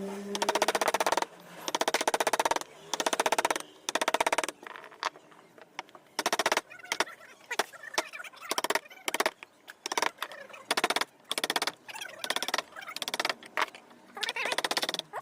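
Carving chisel struck into wood with a mallet in quick runs of rapid taps, each run lasting under a second, with short pauses between runs.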